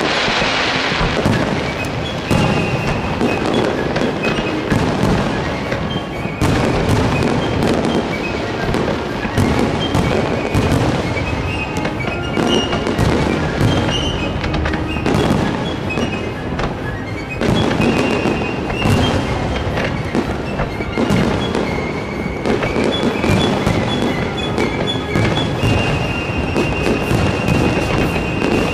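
Fireworks finale: a continuous barrage of bangs and crackles, shells bursting in rapid succession, with music playing under it.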